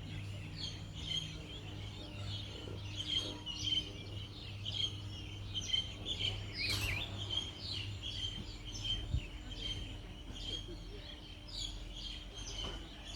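Several birds chirping and singing in quick, overlapping short calls, over a steady high-pitched tone and a low hum that stops about nine seconds in.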